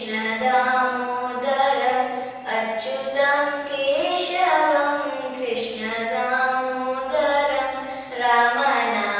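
A young girl singing a Carnatic-style vocal line unaccompanied, holding long notes that bend and slide in pitch, with brief pauses for breath.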